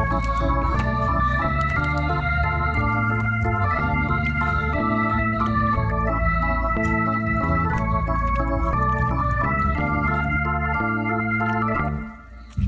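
Background instrumental music: a keyboard melody over held bass chords at a steady level, dropping away briefly near the end.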